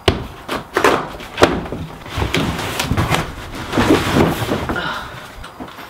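Large cardboard shipping box being handled and lifted off a packed inflatable boat: cardboard flaps flexing and scraping, with a few sharp knocks in the first second and a half.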